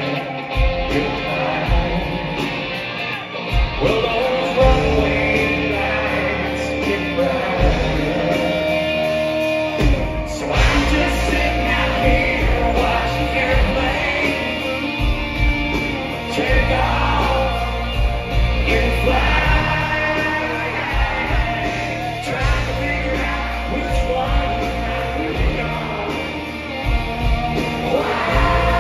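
Live country-rock band with electric guitars and keyboards playing loudly, with a male lead singer singing over it, heard from the audience in a concert hall.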